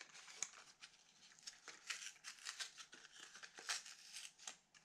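Faint, irregular crinkling and crackling of a plastic blister pack and its cardboard backing as a crankbait lure is pried out of its retail package by hand.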